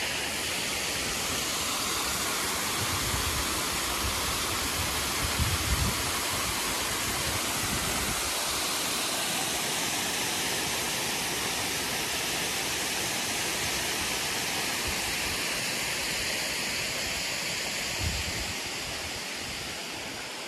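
Steady rush of water spilling over a low stone dam's spillway onto flat rocks, with a couple of brief low thumps about five seconds in and near the end.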